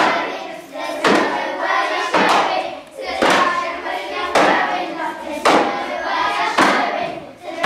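A group of children chanting in unison over a steady struck beat, one hit about every second.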